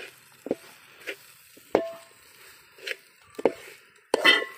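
A steel spoon knocking and scraping against a metal pot as a thick spice masala is stirred: irregular clinks, some with a brief metallic ring, and a louder clatter near the end.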